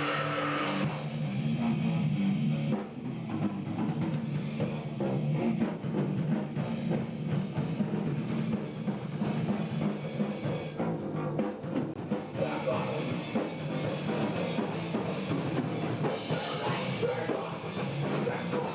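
Heavy rock music with a full drum kit, bass drum and distorted guitars.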